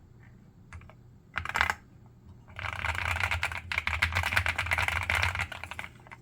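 The GMK67 keyboard's aluminium volume knob being turned, a fast run of small clicks as it rotates. There is a short clatter about a second and a half in, then two spins of rapid clicking lasting about three seconds in all, with a brief break between them.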